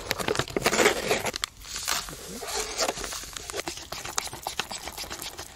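Foil lid being peeled back from a paper cup of instant potato pancake mix, crinkling and tearing. The crinkle is densest in the first two seconds, then gives way to lighter scattered rustles and clicks.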